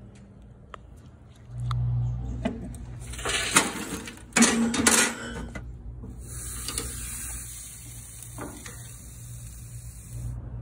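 Glassware clinking and rattling as bowls and a jar are handled. Then, from about six seconds in, a steady hiss of a seasoned picanha roast sizzling on a charcoal grill grate over hot coals, which stops sharply just before the end.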